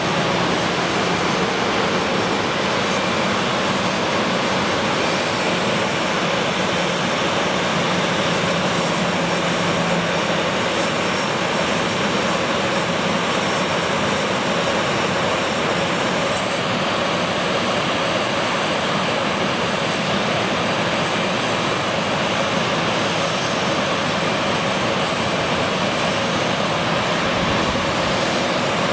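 Gulfstream G550's twin Rolls-Royce BR710 turbofan engines running steadily, with a high, constant whine over a broad rush of jet noise that neither rises nor falls.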